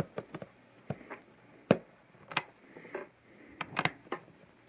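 Plastic LEGO pieces clicking and tapping as they are handled, about a dozen short, sharp clicks at irregular intervals.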